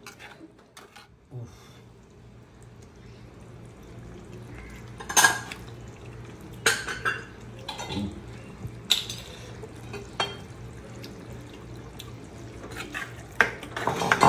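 Metal spoon scraping and clinking against a cooking pot and a glass serving bowl as thick curry is ladled out, in scattered sharp clinks a second or so apart.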